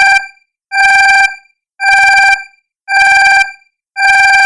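Countdown timer alarm beeping: a steady pitched tone sounding for about half a second, repeating about once a second, signalling that the three minutes are up.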